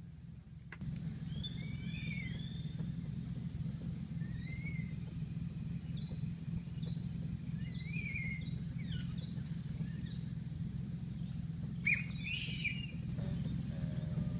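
Rainforest ambience: birds give short chirping calls that glide up and down, four or five times, over a steady high insect drone and a low steady hum.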